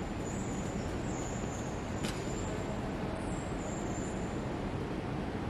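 Steady background hum of a large airport terminal hall, with a faint high whine that comes and goes and a small click about two seconds in.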